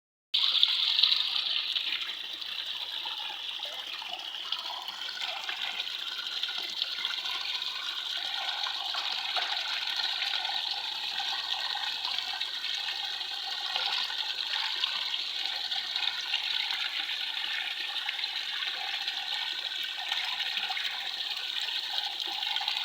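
Waterfall: water falling and splashing in a steady rush, a little louder for the first couple of seconds.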